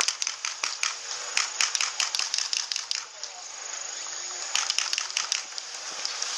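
Tall grass and weeds rustling and crackling against the camera as someone pushes through dense vegetation: a quick irregular run of snaps and crackles over a hiss, dropping back briefly around the middle before picking up again.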